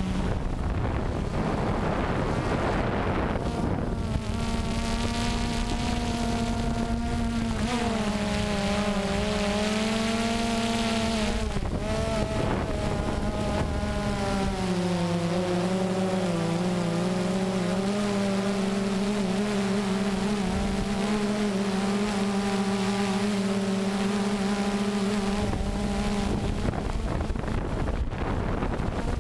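Multirotor drone's motors and propellers humming steadily in flight, over a rush of wind on the microphone. The pitch of the hum dips and shifts several times as the motors change speed.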